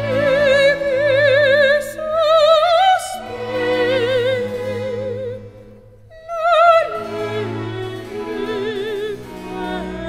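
Background music: an operatic singing voice holding long notes with a wide vibrato over sustained instrumental accompaniment, briefly pausing about six seconds in before the next phrase.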